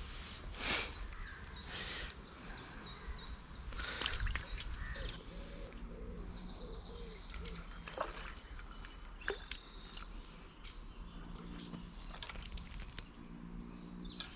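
Birds singing over a steady low rumble of wind on the microphone, with a few short sharp clicks from handling the fishing rod and reel.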